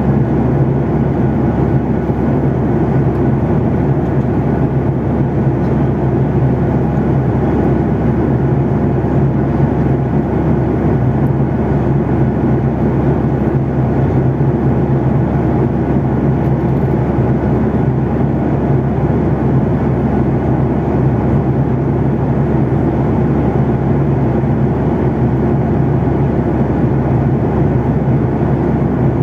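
Steady cabin noise of a jet airliner in cruise, heard inside the cabin: engine and airflow noise with a steady low hum, unchanging throughout.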